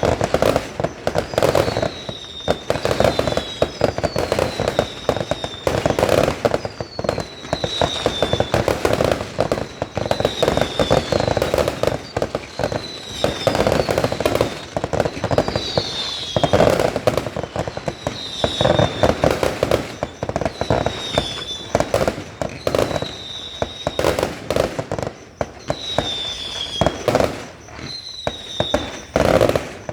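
Fireworks going off continuously: rapid bangs and crackling bursts one after another, with short high whistles that fall slightly in pitch every couple of seconds.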